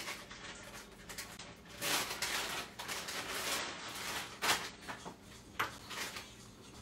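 Cookware and utensils handled at a stovetop: short rushes of scraping noise about two and three seconds in, then a few sharp knocks and clicks.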